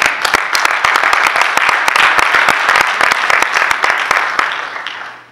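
Congregation applauding: dense clapping that swells and then dies away shortly before the end.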